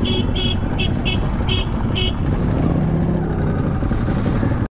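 Motorcycle running at low speed, heard through a helmet camera with wind and road rumble, with a string of short high-pitched beeps over the first two seconds. The sound cuts off abruptly near the end.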